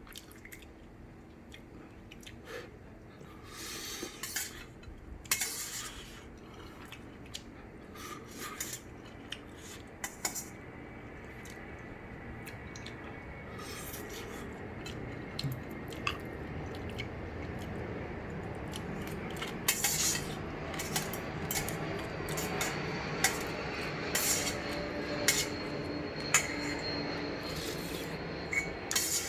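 Eating utensils clinking and scraping against a bowl of ramen during a meal, in scattered sharp clinks.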